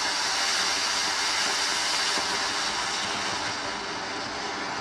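Ground fountain firework (flower pot) spraying a column of sparks with a steady hiss, easing off slightly near the end.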